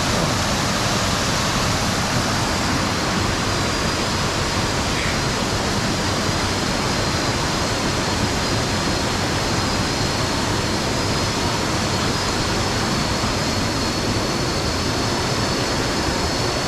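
Waterfall: a steady, loud rush of falling water, with two faint high steady tones above it.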